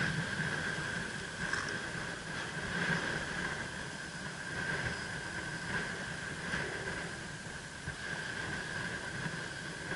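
Steady outdoor wind and sea noise over shallow water, with a constant thin high whine running through it and a few faint taps.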